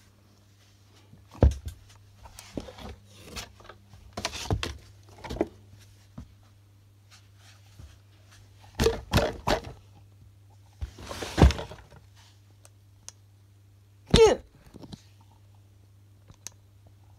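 Close handling noise: scattered thumps, knocks and rubbing as the phone and a plush shark puppet brush against objects, over a low steady hum. Near the end a short wavering pitched sound stands out.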